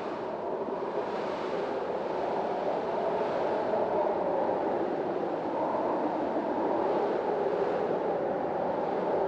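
Strong storm wind blowing as a steady, dense rush that swells a little louder over the first few seconds and then holds.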